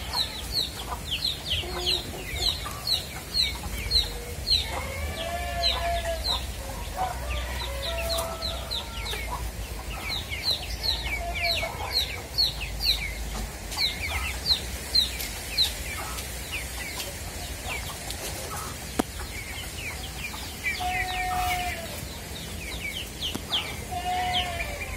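Birds calling: runs of short, high, falling chirps, several a second, with a few lower clucking calls in between.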